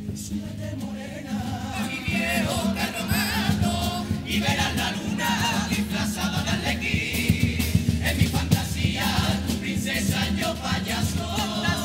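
A carnival comparsa choir singing together in harmony over strummed Spanish guitars and a steady drum beat. The voices come in about two seconds in, after a short instrumental lead-in.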